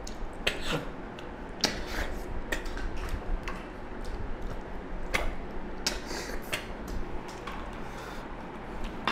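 Snail curry being eaten by hand: irregular sharp sucking and smacking clicks, a few each second, as the snail meat is sucked from the shells, with shells clinking against steel plates.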